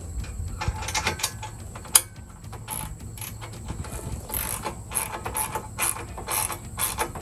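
A socket ratchet clicking in short runs as it tightens the 16 mm bolts holding a steel side armor bar to the Bronco, with one sharp, louder click about two seconds in.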